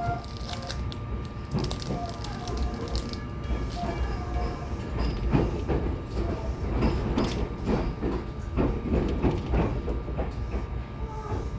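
Tobu 20400 series electric train heard from inside a motor car while running: a steady rumble of wheels on rail, with irregular clicks and knocks as the wheels cross rail joints.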